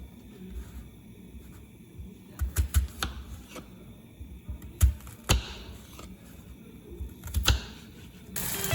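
A few scattered light clicks and knocks over quiet room tone, some in quick clusters.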